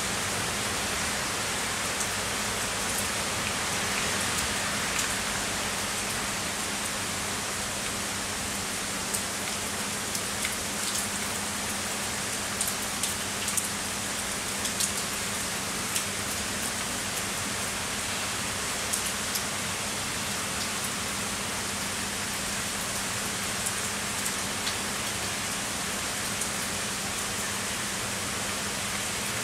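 Heavy rain falling steadily, with scattered individual drops ticking sharply on a hard surface close by.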